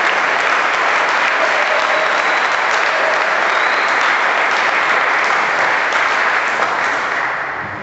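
Spectators in a sports hall applauding after a table tennis rally, a steady clapping that dies away near the end.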